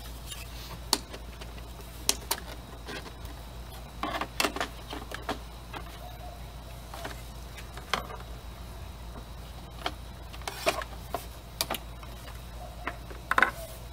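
Scattered plastic clicks and knocks as the blue plastic side cover of a Dolphin Nautilus pool robot is pressed and seated onto its housing, a cluster about four seconds in and another near the end, over a steady low hum.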